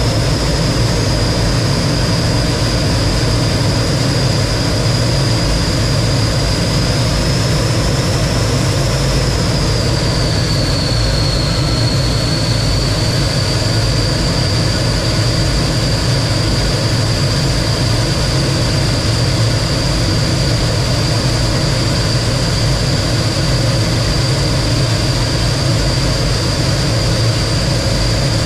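T-33 jet's turbojet engine running steadily, a loud rumble with a high whine on top; the whine dips slightly in pitch about ten seconds in, then holds steady.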